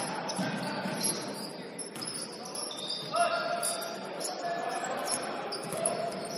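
Live basketball game: the ball bouncing on a hardwood court amid the general noise of play, with a short call from a player about three seconds in.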